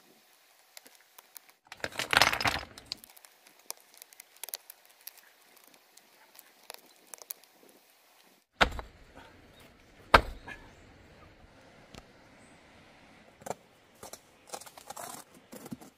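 Masonry work: loose stones clinking and scraping as they are set into wet mortar, with a loud clatter of stone about two seconds in and two sharp knocks of a hammer on stone about a second and a half apart midway. Near the end, a trowel scrapes and taps on concrete blocks.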